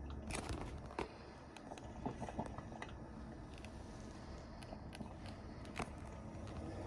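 Technivorm Moccamaster drip coffee maker brewing: a faint low hum with irregular small pops and clicks, the loudest a few near the start and one about six seconds in.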